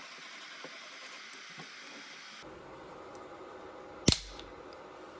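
A steady machine hum cuts off abruptly about two and a half seconds in. About four seconds in there is a single sharp, loud click with a short ring.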